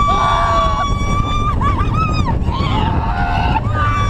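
Two roller-coaster riders, a man and a woman, screaming: one long held high scream, then shorter wavering yells, over the steady low rumble of the coaster train.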